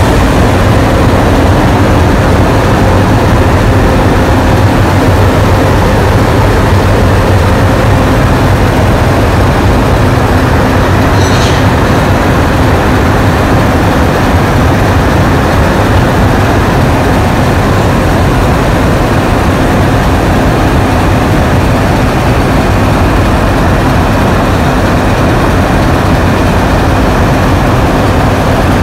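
Diesel locomotives, including 442 class 442s1, running steadily at close range: a loud, even engine drone with a low hum. A brief high hiss comes about eleven seconds in.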